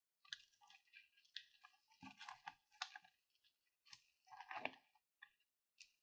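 A spatula stirring and folding fluffy foam slime in a glass dish: faint, irregular squishing and crackling of the foam with each stroke, loudest about three and four and a half seconds in.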